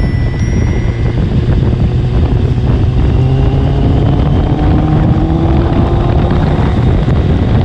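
Honda CBR650R's inline-four engine with a loud aftermarket JP exhaust pulling under way, its note rising slowly as the bike gathers speed, with wind rushing over the microphone.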